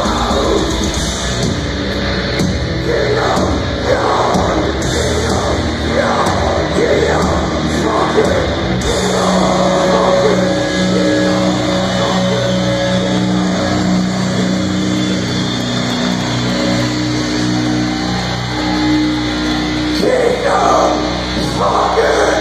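Melodic death metal band playing live in a large hall, loud and continuous. About nine seconds in, the top end thins and long held notes come to the fore.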